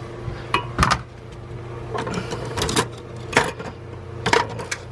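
Metal hand tools clinking and knocking as they are handled and set down, several short sharp clacks in small clusters over a steady low hum.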